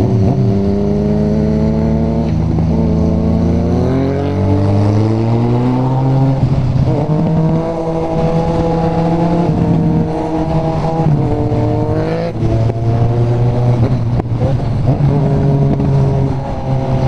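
Motorcycle engine heard on board while riding through traffic: the revs climb under acceleration, hold steady while cruising, then rise and drop again with gear changes.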